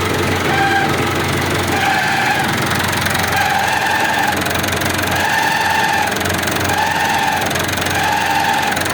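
Massey Ferguson 265 tractor's three-cylinder Perkins diesel idling with the clutch pedal pressed, over which the clutch housing gives a repeated squeal, about six pulses a little over a second apart. The noise comes from a seized clutch release bearing.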